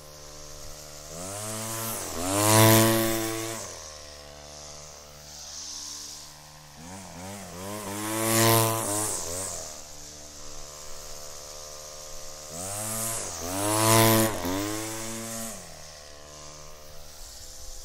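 Gas-powered string trimmer (weedwacker) idling, then revved as it passes the microphone three times, about six seconds apart. With each pass the engine pitch climbs and then drops away.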